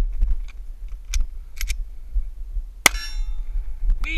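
Footsteps thudding on a dirt trail at a quick walk or jog, with light clinks of carried gear, and one sharp crack about three seconds in that is followed by a short metallic ring.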